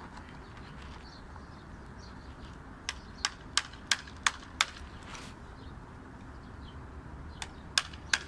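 Flint spark igniter being struck at the top of an exothermic welding mould to light the weld charge on a copper wire joint: six sharp clicks about three a second, then three more near the end.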